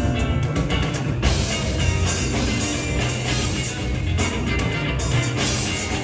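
Live dance band playing music with a steady beat.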